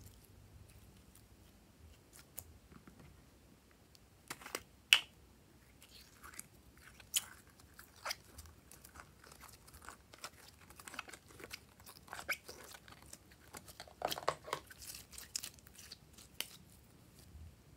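Glossy slime being kneaded and squeezed by hand, giving irregular sticky pops, clicks and crackles. The sound is sparse at first and grows busier in the second half.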